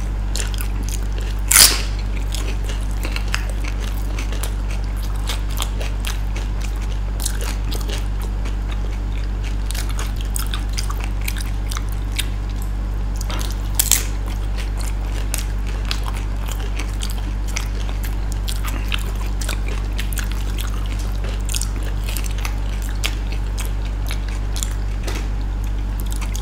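Close-miked eating of dahi golgappe (crisp puri shells filled with yoghurt): crunching bites and chewing, with sharp crackles throughout and two much louder bites, one about a second and a half in and one about halfway. A steady low hum runs underneath.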